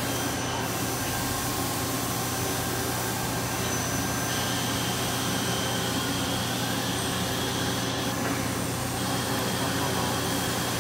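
1995 Miyano BNC-34A CNC turning center cutting a part under coolant spray: steady machine noise with a constant low hum. A higher whine joins about four seconds in and drops out around eight seconds.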